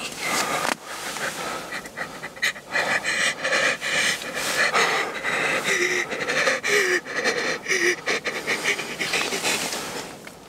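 A person panting, fast heavy breaths with a few short voiced whimpers about six to eight seconds in, easing off near the end: breathless excitement and adrenaline just after a first crossbow shot at a deer.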